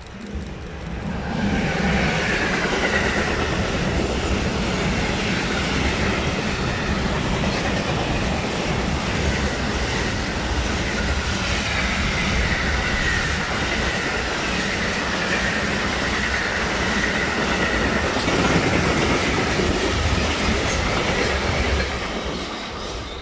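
Electric-hauled container freight train passing close by at speed: a loud, steady rumble and clatter of wagons on the rails, with a high wavering squeal running above it. It rises quickly about a second in and fades as the last wagons go by near the end.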